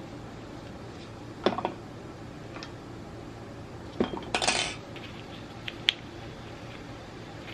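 Metal tools and small metal parts clinking against a stainless steel bowl of soapy water: a few knocks about 1.5 s in, a louder short rattle around 4 s, and a single sharp click near 6 s, over a steady low background hum.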